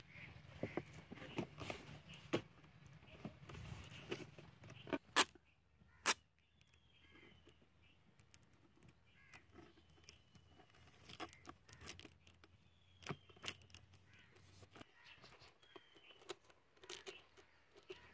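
Adhesive packing tape being pulled off its roll and pressed onto a cardboard shoebox, amid scattered clicks and knocks of the box being handled, two of them sharper about five and six seconds in. A bird gives short, faint falling chirps several times in the second half.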